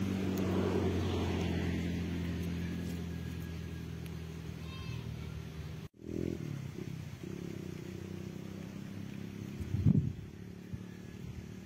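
A motor vehicle's engine running steadily and slowly fading. After a break about six seconds in, a lower engine hum continues, with a brief louder rumble near ten seconds.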